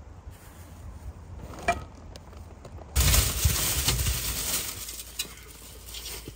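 A large plastic bag crinkling and rustling as it is handled and lifted out of a car boot. The rustle starts suddenly about three seconds in, is loudest for about a second and then fades, with a single knock before it.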